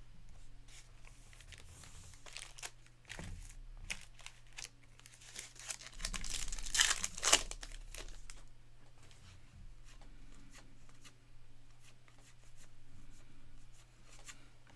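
A baseball card pack's wrapper being torn open and crinkled, with small clicks and rustles of cards being handled; the loudest tearing comes around the middle.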